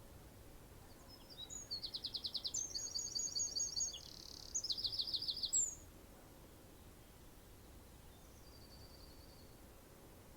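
A songbird singing one phrase of fast, high trills and chirps, about four seconds long, starting about a second in, then a faint short call near the end over a quiet background hiss.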